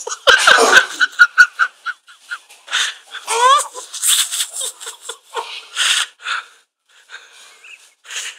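A man retching and gagging into a plastic bag: a string of short heaves and choking breaths, loudest in the first couple of seconds and growing sparser and quieter toward the end.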